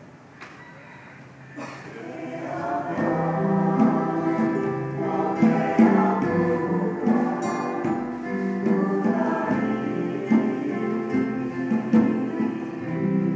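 Choir singing sustained harmonies; the voices start softly and swell to full volume after about two seconds.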